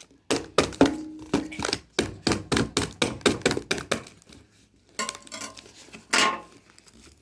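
Cardboard parcel being cut and pried open with a knife: a quick run of sharp taps, scrapes and clicks, then a pause and a few louder knocks with a brief clink about six seconds in.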